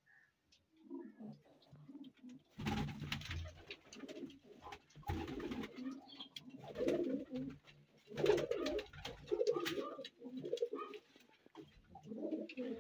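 Several domestic pigeons cooing over and over in a low, warbling murmur, with a few brief, louder rustling bursts among them.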